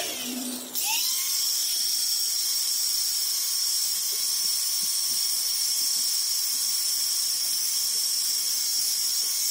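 Electric angle grinder running at full speed with a steady high-pitched whine. It dips briefly and spins back up about a second in.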